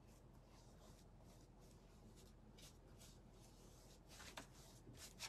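Near silence with faint, short swishes of a small paintbrush stroking sealer onto a painted surface; a few slightly louder strokes come from about four seconds in.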